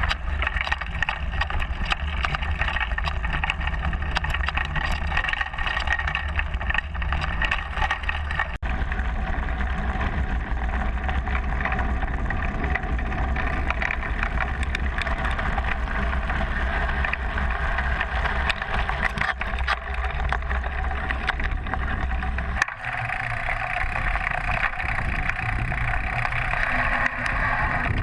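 Riding noise picked up by a GoPro in its case on a bicycle's stem top cap: a steady rush of wind and tyre rumble with frequent small rattles and knocks from the bike. The sound changes abruptly twice, about a third of the way in and near the end.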